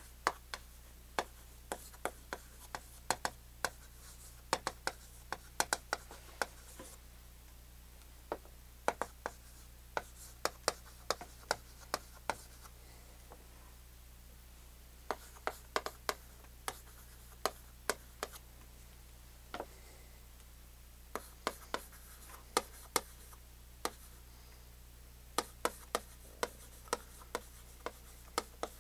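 Chalk tapping and scraping on a chalkboard as a sentence is written, many sharp clicks in runs of a few seconds with short pauses between.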